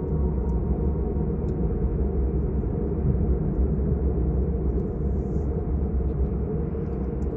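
Car driving on the road: a steady low rumble of tyres and engine.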